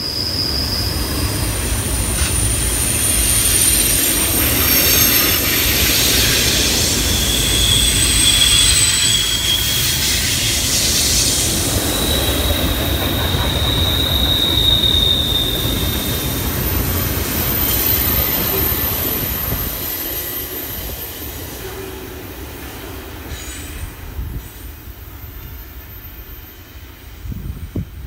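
Double-stack intermodal freight cars rolling around a sharp curve: a heavy steady rumble with high-pitched wheel squeal, several long squealing tones coming and going, from wheel flanges grinding against the rail on the tight curve. The sound fades over the last several seconds as the end of the train passes and moves away.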